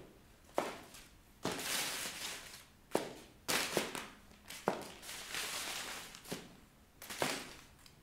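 Stiletto high-heeled pumps stepping on and tearing loose paper sheets on a tiled floor. Several sharp heel clicks on the tile fall between stretches of paper crinkling and tearing underfoot, each about a second long.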